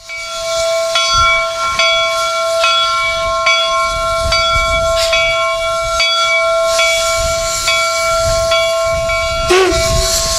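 Steam locomotive whistle held in one long chord over hissing steam, with a faint regular click a little more than once a second. The whistle wavers briefly in pitch near the end.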